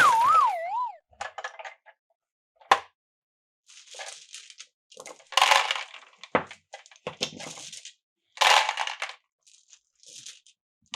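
Glass marbles rolling and clattering through wooden Cuboro marble-run blocks: several short bursts of rolling, with sharp clicks between them. A short wavering tone falls away in the first second.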